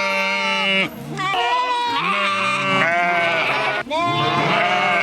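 Several sheep bleating at once, overlapping calls of different pitches with almost no pause, briefly dropping off about a second in and again near four seconds.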